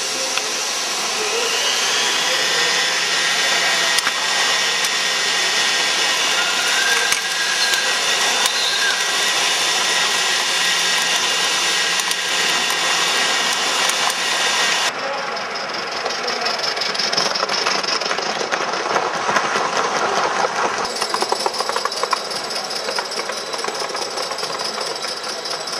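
A steady hiss from a live-steam gauge 1 model locomotive, with voices in the background. About fifteen seconds in it changes abruptly, and later a fast, regular clatter takes over.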